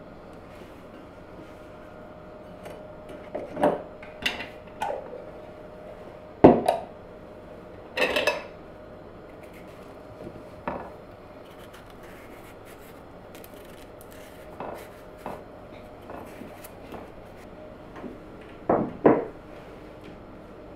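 Dishes and utensils knocking and clattering now and then, with the loudest knocks about six and a half seconds in, around eight seconds in, and a pair near the end, over a faint steady hum.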